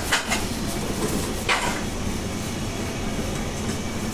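Café kitchen noise: a steady low rumble of kitchen machinery with a few sharp clinks of utensils and dishes, two near the start and the loudest about a second and a half in.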